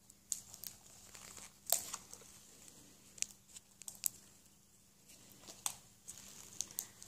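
Plastic packaging of a small blind-pack toy crinkling and crackling as it is picked and torn at by hand, in faint, irregular sharp crackles; the package is hard to get open.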